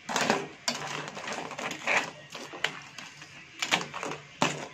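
Metal spoon clinking and scraping against a stainless steel wok and the shells of whole cooked crabs as they are stirred: about half a dozen sharp knocks at uneven intervals.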